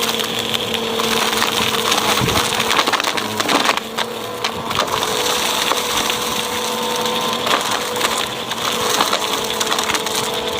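Vacuum cleaner with a spinning brushroll running over carpet and crackling steadily as it sucks up crunchy dirt and debris, over a steady motor hum.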